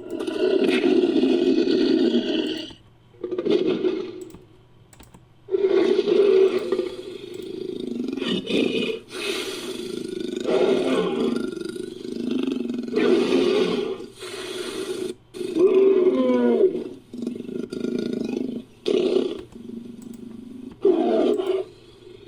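Designed monster creature sound effect: a series of layered roars and growls of varying length, separated by short pauses, made by mixing big-cat, ape and film-monster roars.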